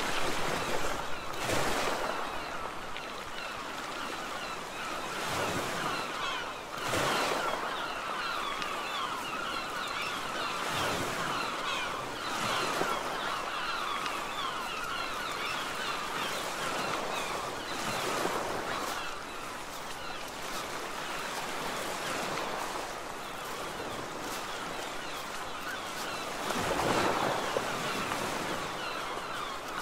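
Sea surf washing on a shore, with wind. It swells every several seconds, loudest about a second in and near the end.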